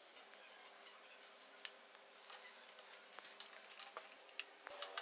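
Faint, irregular light clicks and scrapes of a socket tool on an extension turning the small bolts of the valve caps on a Bajaj Platina 100cc engine's cylinder head.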